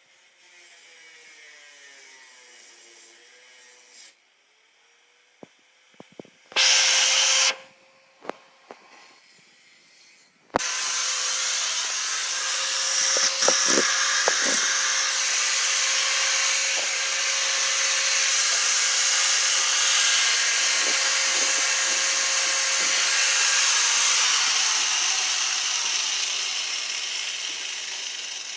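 Angle grinder with a cutting wheel. A short, loud burst comes about seven seconds in, then from about ten seconds it starts suddenly and runs loud and steady, falling in pitch and fading near the end as it winds down.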